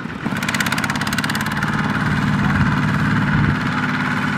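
Kubota walking tractor's single-cylinder diesel engine running steadily with a fast, even beat, louder from about a third of a second in, as it works to pull a trailer of rice sacks stuck in mud.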